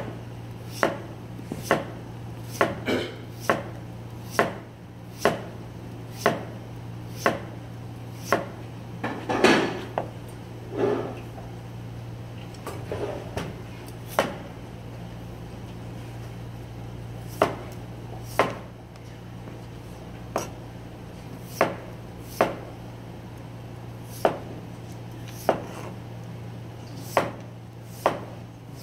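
Chef's knife slicing a raw potato into thin rounds on a plastic cutting board: a sharp knock each time the blade meets the board, about once a second with a few short pauses.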